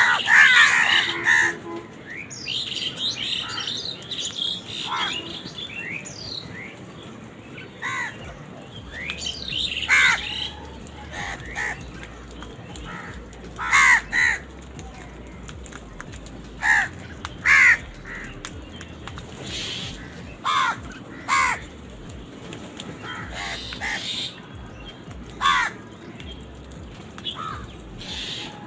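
Crows cawing: several calls overlap loudly in the first second or so, then single short caws follow every one to three seconds.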